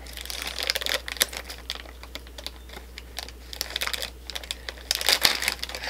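Small cardboard blind box being opened by hand, then the black foil bag inside it crinkling and tearing open: a run of small, sharp, irregular crackles that grows thicker near the end.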